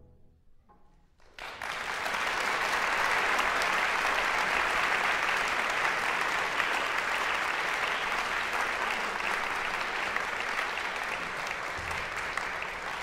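Audience applause breaking out suddenly after a short hush about a second and a half in, at the close of a choral performance, then carrying on steadily and easing slightly near the end.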